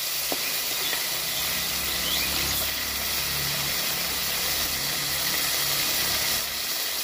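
Whole koi fish (climbing perch) frying in hot oil in an aluminium wok, a steady sizzling hiss.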